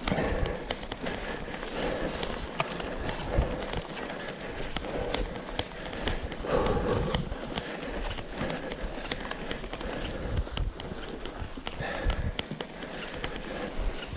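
Mountain bike riding over rough off-road ground: tyres rolling on dirt and stones, with the bike rattling in many small sharp knocks throughout and a steady low rumble.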